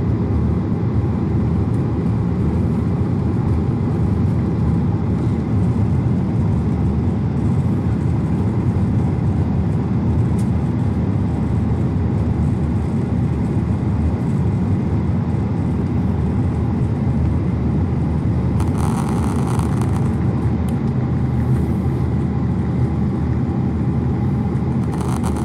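Steady cabin noise of a jet airliner climbing after takeoff: the engines and rushing air make an even low rumble. A brief higher hiss comes in for about a second, roughly two-thirds of the way through.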